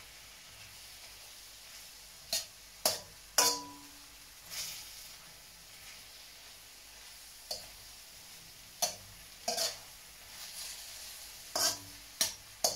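Diced beef sizzling in a metal wok as it browns, while a slotted metal spatula stirs it, striking and scraping the pan about ten times. One strike, about three and a half seconds in, is the loudest and rings briefly.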